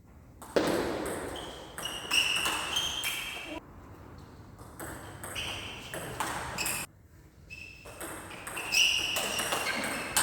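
Sports shoes squeaking on an indoor court floor during a rally: repeated short, high squeaks at several pitches, with sharp hits among them, in groups that stop abruptly a few times.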